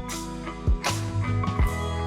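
Background music: guitar and bass notes over a steady drum beat.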